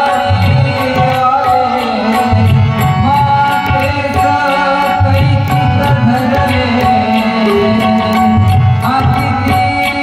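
Marathi devotional song, a male voice singing a melodic line over tabla. Deep bass-drum strokes come in repeated phrases, and a steady high ticking keeps the beat.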